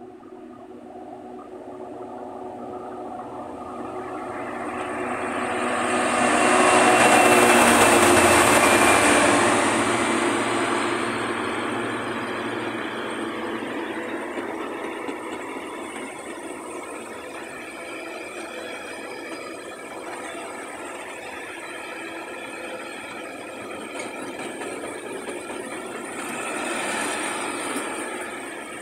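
A GBRf Class 66 diesel locomotive approaching and passing, loudest about seven to nine seconds in. A long rake of yellow engineering wagons then keeps rolling past with steady wheel-on-rail noise.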